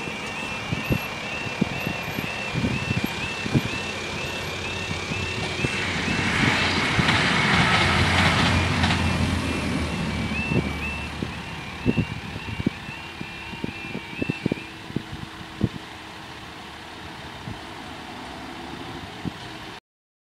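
Level crossing warning alarm warbling in a steady repeating two-tone pattern while a Northern Ireland Railways diesel multiple unit crosses, its engine and wheel noise swelling about six seconds in, loudest around eight seconds and fading by about ten. Scattered short knocks sound throughout, and the alarm stops about three-quarters of the way through as the crossing clears.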